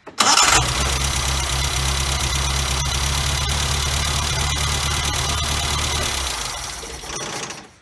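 Nissan 1400's A14 four-cylinder engine, on a newly fitted Weber 36 DCD carburettor, catching almost at once after cranking and then running steadily. The sound eases off about six seconds in and cuts off near the end.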